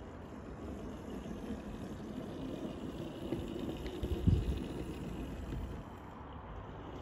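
Hornby Peckett model tank locomotive running along the track, a low rumble of its motor and wheels on the rails, with a brief louder low bump about four seconds in as it passes close.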